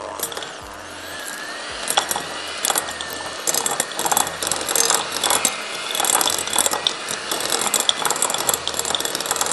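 Electric hand mixer switched on at the start, its beaters whirring and clicking against a glass bowl as they break up a block of butter. It gets louder after about two seconds, as the butter starts to cream.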